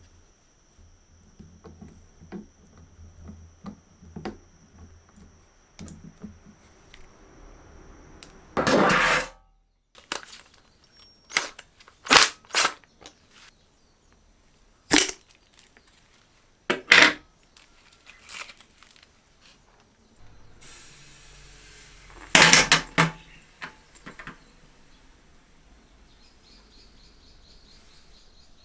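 Metal parts being handled on a workbench: scattered light clicks and knocks, with a few short loud clatters or bursts of noise.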